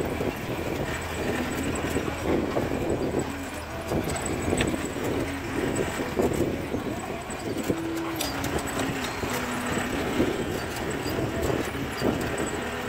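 CJ 550 jeep's engine running steadily as it drives over a rough dirt track, with the body rattling and knocking over the bumps.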